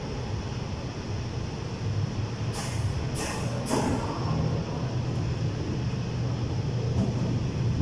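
A steady low mechanical hum, with three short hissing bursts in quick succession about three seconds in.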